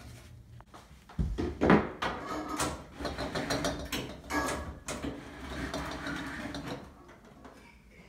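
Irregular knocking, rattling and rubbing from hands working behind a bottled water cooler, among its rear condenser coils. The loudest clatter comes between one and two seconds in, and it quietens near the end.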